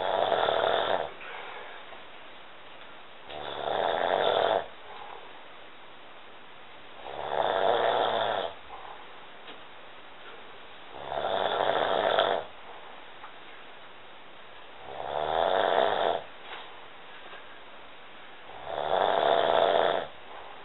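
A person snoring in their sleep: six loud snores, one about every four seconds, each lasting about a second, building up and then stopping abruptly.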